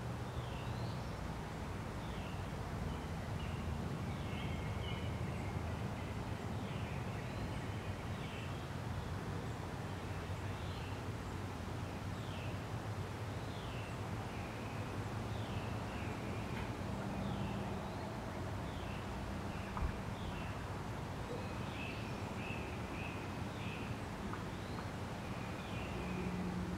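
Outdoor ambience with birds chirping on and off over a steady low background rumble, picked up by a Nikon D3300 DSLR's built-in microphone.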